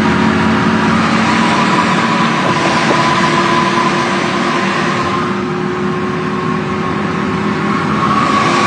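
A semi-truck under way on a test drive after a wheel hub repair: steady engine and road noise with a faint whine, easing a little about five seconds in and building again near the end.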